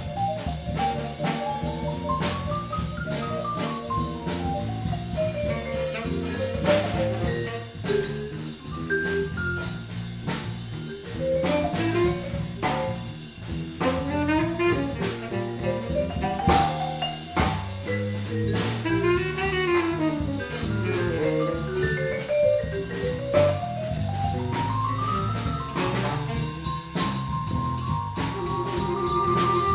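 Jazz-funk band playing, led by a vibraphone solo of fast runs that climb and fall, over electric bass and drum kit.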